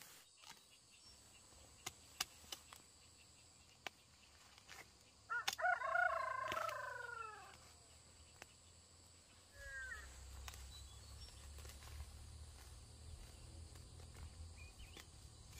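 A rooster crows once about five seconds in, a call of about two seconds that falls in pitch at its end, followed by a short falling call near the ten-second mark. A few light ticks earlier on come from a machete cutting weeds.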